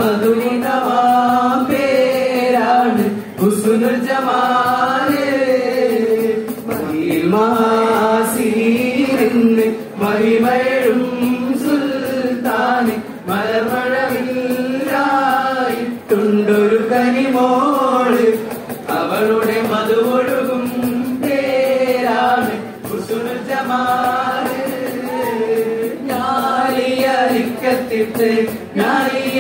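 Group of male voices singing a Mappila Pattu (Malayalam Mappila folk song) together in a choir-like unison, the melody bending through long phrases, with sharp percussive taps throughout.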